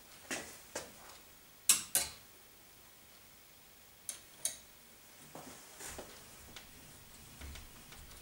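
Sharp metal clicks and taps, three quick pairs in the first half, then softer small knocks, from the wires and fittings of a carriage-wheel rubber-tyring machine being handled.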